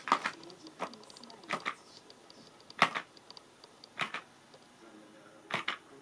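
Sharp plastic clicks and clacks from a green air-pump jumping frog toy and its clear plastic stand being knocked about. They come singly or in quick pairs about every second or so, the loudest about three seconds in.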